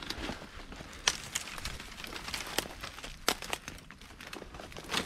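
Footsteps with scattered crackling and a few sharp clicks or snaps, about one a second.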